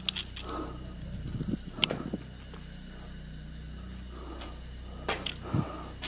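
Footsteps and camera handling on a staircase: a few scattered sharp clicks and soft knocks, the clearest about two seconds in and another pair about five seconds in, over a steady low hum. Thin high steady tones sound during the first second.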